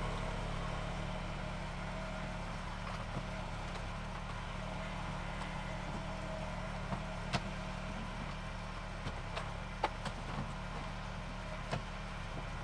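Kubota U10-3 mini excavator's diesel engine running steadily while the machine lifts a heavy box, with a few light knocks about halfway through and near the end.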